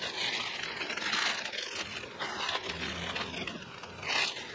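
Masking tape being peeled and masking paper and plastic sheeting crinkling as they are pulled off painted wheel rims, in several rasping bursts, the strongest about a second in and another near the end.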